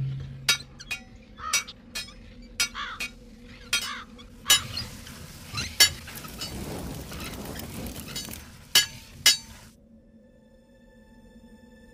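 Burning coals and embers crackling: about a dozen sharp pops at irregular intervals over a faint hiss. The pops stop near the end, leaving only a faint steady hum.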